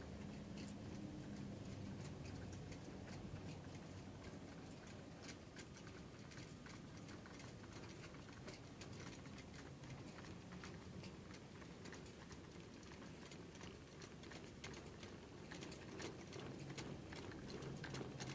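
Faint, irregular clicking and ticking of model railway wagon wheels on the track as a shunting train creeps through the yard, over a low steady hum.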